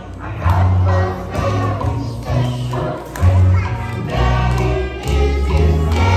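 A group of young children singing together along with a musical backing track that has a steady, pulsing bass line.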